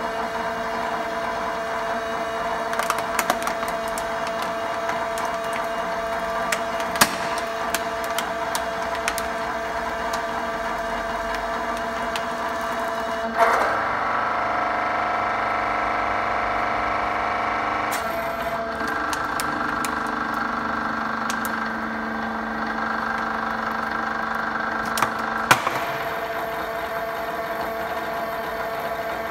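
Hydraulic press's pump motor humming steadily while a plastic water bottle is crushed under the ram, with scattered sharp crackles and snaps from the plastic. About halfway through the pump's note changes and grows louder for several seconds as the ram works under load, then settles back to its steady hum.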